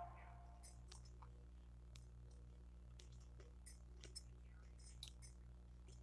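Near silence: a faint steady low hum with a few faint, scattered clicks.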